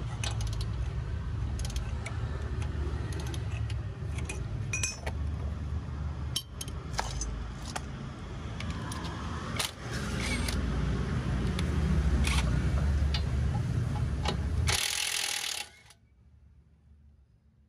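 Hand tools clinking and knocking on metal car parts over a steady low rumble, with a short burst of hiss near the end before it falls nearly quiet.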